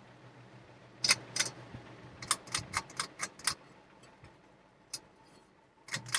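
Hunter Coastal Breeze Plus ceiling fan motor with a steady low hum, under a series of sharp metallic clicks and rattles: two about a second in, a quick run of about six shortly after, one more, then two near the end.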